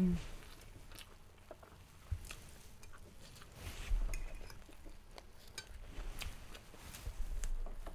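A metal fork clinking and scraping against a plate of fried rice: scattered light clicks, a few soft thumps and a brief high scrape about four seconds in.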